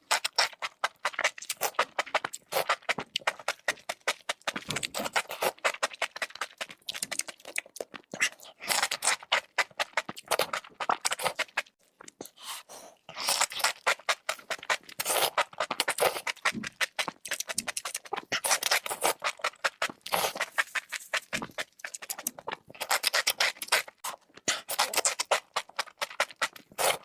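Close-miked chewing of mushrooms: rapid wet, crackling mouth clicks in bursts, with short pauses between mouthfuls.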